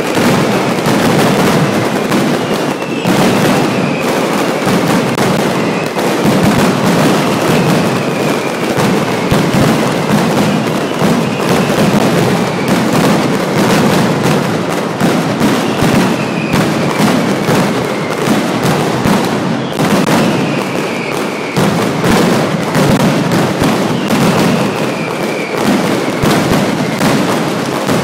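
Mascletà firecrackers going off in a dense, continuous barrage of rapid loud bangs, with high whistles falling in pitch every few seconds.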